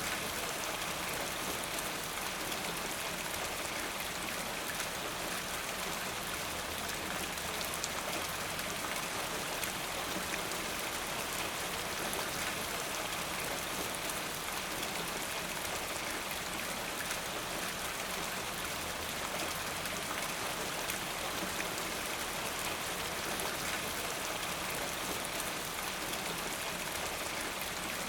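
Steady rain falling: an even, unbroken hiss full of small drop ticks.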